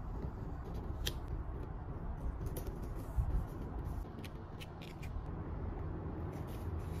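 Metal tweezers and paper stickers being handled: a handful of light, sharp clicks and taps as stickers are lifted off a sticker sheet and pressed onto a journal page, with soft paper rustle over a low steady background rumble.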